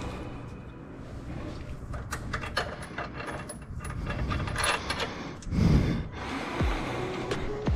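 Irregular metallic clinks and knocks of tools and parts being handled, with a heavier thud about five and a half seconds in.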